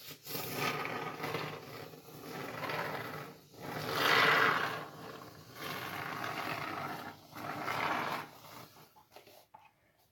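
Can of expanding foam spraying and sputtering in about five spurts of a second or two each, a rasping hiss with short breaks between them, loudest about four seconds in.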